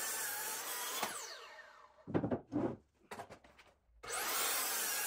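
A Ridgid sliding miter saw crosscuts a poplar 2x8. The saw runs through the cut, then winds down with a falling whine about a second in. A few knocks follow, and the saw starts again near the end for the next cut.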